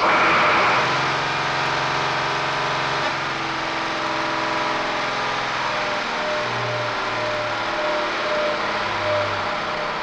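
DAF truck diesel engine running steadily at high revs on a test bench, called out as 2400 rpm at full load.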